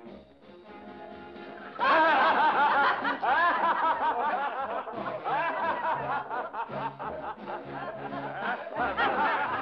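Background music with steady low notes, joined about two seconds in by a group of men laughing loudly in repeated bursts over it.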